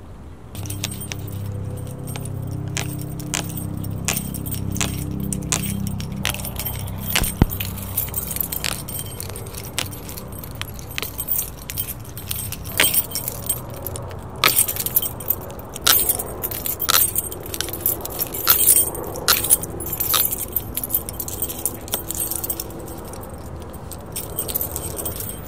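Keys or small metal pieces jangling and clinking in irregular bursts, thickest in the second half. Under the first several seconds there is a low, steady hum.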